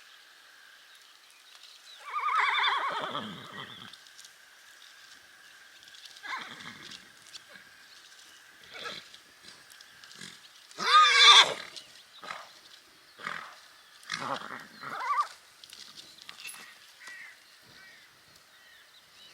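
Horses whinnying several times. A long whinny about two seconds in falls in pitch, the loudest call comes about halfway through, and shorter calls fall between and after, over a faint steady high tone.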